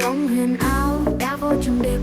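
Background music: a melody moving over sustained low notes.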